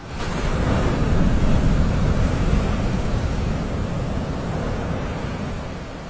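Loud rushing noise of wind and breaking surf, coming in suddenly and easing off toward the end.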